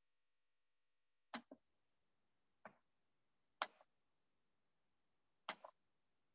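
Computer mouse clicks: four short, sharp clicks, two of them quick doubles, against near silence. They come as a PowerPoint slideshow is being started.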